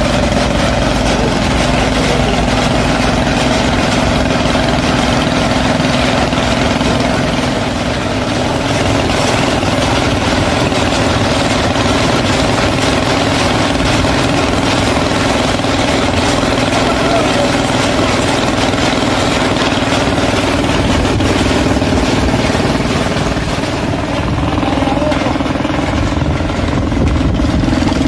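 Homemade helicopter's engine running steadily at a constant speed, a continuous mechanical drone with a low steady hum.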